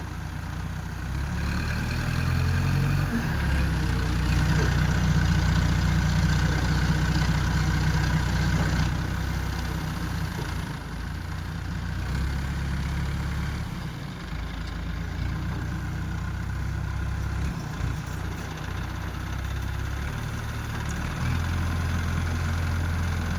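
Heavy diesel engine of an earth-moving machine running, its sound swelling and easing, loudest about 4 to 9 seconds in.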